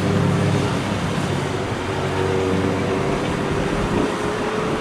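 Boeing Stearman biplanes' radial engines running at display power on a pass, a steady drone with one tone rising slightly in pitch in the second half.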